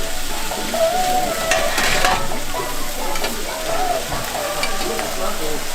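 Beef skirt steak sizzling on a hot griddle, a steady frying hiss with a brief louder burst a little under two seconds in.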